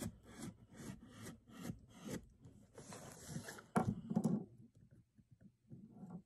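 A blade cutting through the sealed flap of a cardboard Lego box: a quick run of short scraping strokes, the loudest about four seconds in, then only a few faint ticks.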